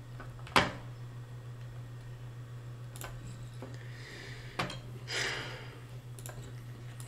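A few sharp clicks of a computer mouse, the loudest about half a second in, placing chips for a blackjack bet. There is a soft rush of noise about five seconds in, over a steady low hum.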